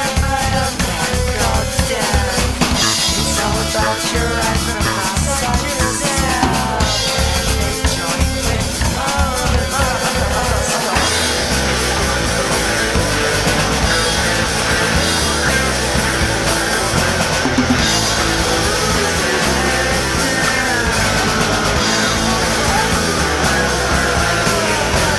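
Rock music from a band with a drum kit playing a steady beat; the sound grows fuller about eleven seconds in.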